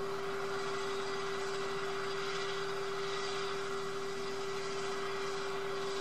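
A steady hum with one constant mid-pitched tone over an even hiss, unchanging throughout; no bird calls.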